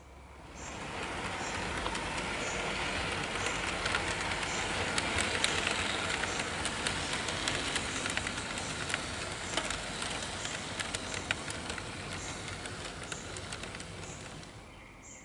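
HO-scale model freight train of covered hopper cars rolling past close by: a steady rolling rumble of small wheels on the track with scattered sharp clicks. It swells in within the first second and fades near the end.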